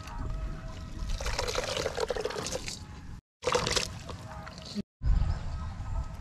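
Liquid trickling and sloshing as freshly grated coconut is squeezed by hand in a steel bowl to press out coconut milk. The sound breaks off abruptly twice, about three and five seconds in.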